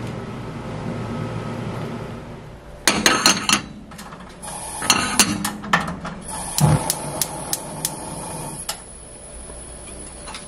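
Cookware being handled on a gas stove: from about three seconds in, several quick runs of sharp clicks and knocks as a nonstick frying pan is set and moved on the stove's metal grate, before oil goes into the pan.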